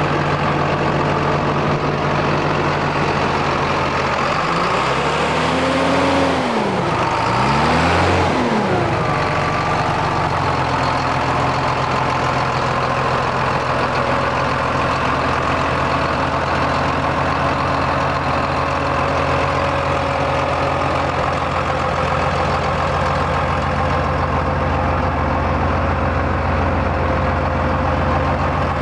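John Deere 8410 tractor's six-cylinder diesel engine idling, briefly revved up and let back down twice about five to eight seconds in, then settling back to a steady idle.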